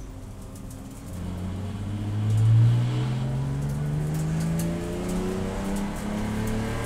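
Race car engine accelerating under load, its pitch climbing slowly for several seconds after it grows louder about a second in.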